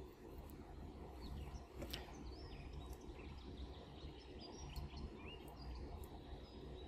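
Faint room background: a steady low hum with birds chirping intermittently outside, and a few sharp clicks.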